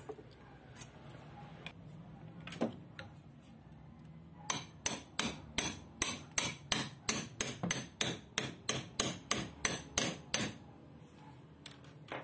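A hammer tapping a steel tube set over the armature shaft, driving the plastic cooling fan down onto the angle grinder's armature. It is a run of about twenty sharp, ringing metal-on-metal taps, roughly three a second, starting about four seconds in, with a few light handling clicks before it.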